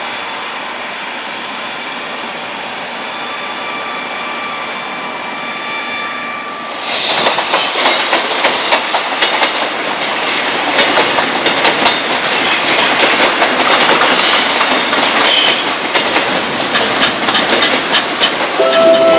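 Freight train of container wagons rolling past with a steady rumble and faint high squealing tones. About seven seconds in, a closer JR Freight EF210 electric locomotive and its container wagons take over, louder, with a rapid clickety-clack of wheels over rail joints.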